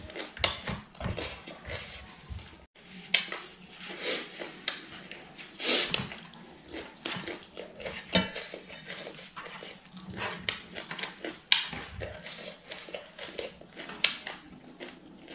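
Eating rice by hand from a stainless steel plate: fingers scraping and scooping on the metal in many short, irregular clicks and scrapes, mixed with close-up chewing and lip-smacking.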